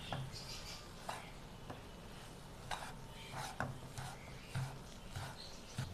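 Plastic spatula stirring and scraping thickening semolina around a non-stick frying pan, with light knocks against the pan about once a second.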